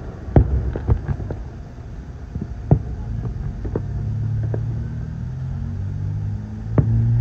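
Fireworks going off: sharp bangs several times at uneven intervals. From about halfway a steady low hum of a vehicle engine runs beneath them.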